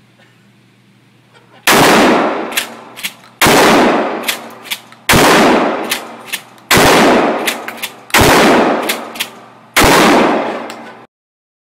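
Mossberg 12-gauge pump-action shotgun fired six times, about a second and a half apart, each loud blast echoing and dying away, with lighter sharp clacks between shots. The blasts ring with the reverberation of an indoor range lane.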